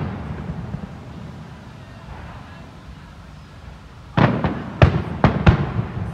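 Aerial firework shells bursting: after a lull of a few seconds, about five sharp bangs come in quick succession around four seconds in, each trailing off in an echo.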